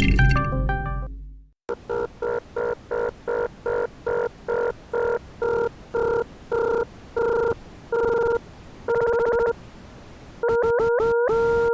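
Computer-synthesized tones generated in the Desmos graphing calculator. A loud cluster of tones fades out, then a buzzy tone near 500 Hz beeps repeatedly like a phone ring, each beep longer and the gaps wider, before a held tone with clicks and small pitch jumps near the end.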